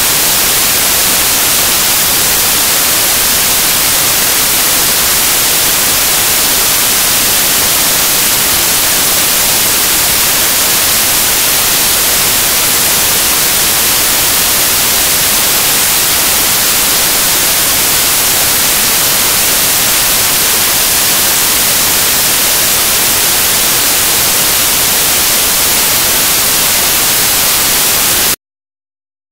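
Loud, steady static hiss, brightest in the high frequencies, from a corrupted stretch of the recording. It cuts off abruptly to dead silence just before the end.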